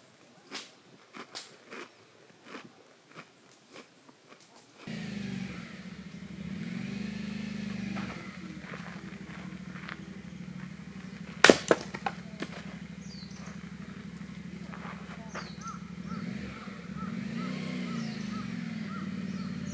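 Firewood being split: one loud sharp strike about eleven seconds in, followed quickly by two lighter ones, over a steady low hum. Scattered light clicks and taps come before the hum starts.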